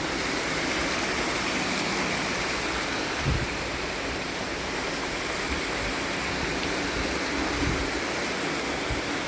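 Steady rush of flowing water, like a waterfall or fast stream. There is a brief low thump about three seconds in.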